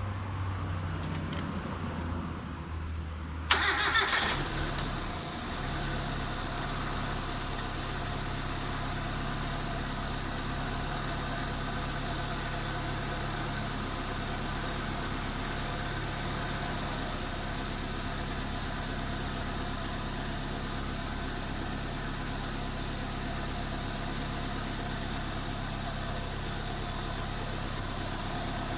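Proton Gen-2 twin-cam petrol engine, its cylinder head freshly refitted, catching with a sudden louder burst about three and a half seconds in, then settling into a steady idle.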